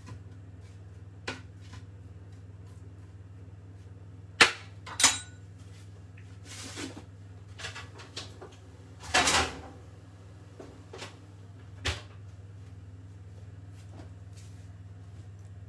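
Kitchen clatter from a metal baking tray and spoon being handled: a few sharp knocks, two loud metallic clanks about four and five seconds in, and a longer rattling clatter around nine seconds. A steady low hum runs underneath.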